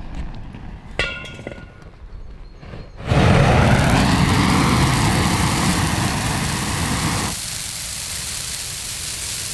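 A gas burner torch starts roaring suddenly about three seconds in as it is held to a dried-out Christmas tree, which catches fire. The torch cuts out about seven seconds in, leaving the steady rushing of the burning tree.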